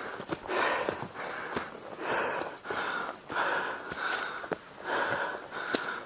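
Heavy, rapid breathing of a hiker climbing a steep trail, close to the microphone: quick breaths in and out, more than one a second. A few light clicks come through underneath.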